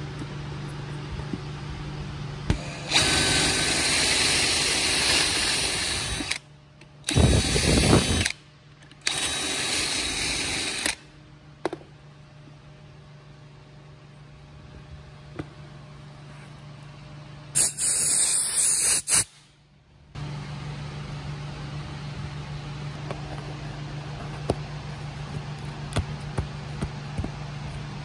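Power drill running a three-bit hinge boring jig, a large cup bit and two small screw-hole bits, boring into a cabinet panel in four short runs of one to three seconds each. A steady low hum and small handling clicks fill the gaps between runs.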